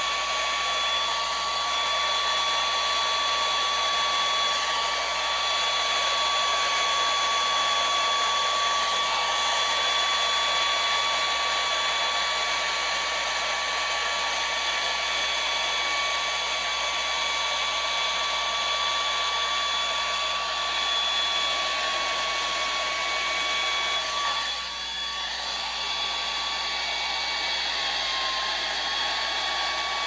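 Handheld hair dryer running steadily, blowing air across wet acrylic paint: a rush of air with a steady whine on top, briefly dipping in level about four-fifths of the way through.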